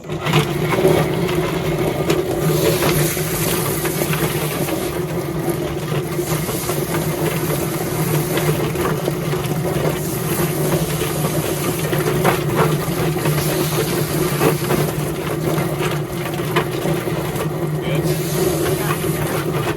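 Chicken plucker starting abruptly and running with a steady motor hum. A scalded Cornish cross chicken knocks and rattles around inside it as the feathers are stripped.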